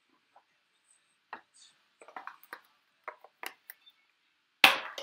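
Trading cards and their packaging being handled on a box lid: a run of light taps and clicks, then one louder knock near the end.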